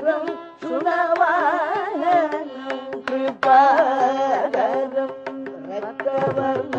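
Recorded Carnatic kriti: a male vocalist sings ornamented, sliding melodic phrases over mridangam strokes.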